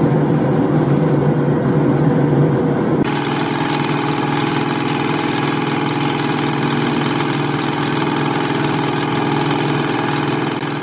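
CNC spring coiling machine running steadily, with a dense, rapid ticking over a steady mechanical drone. The sound changes abruptly about three seconds in and begins to fade near the end.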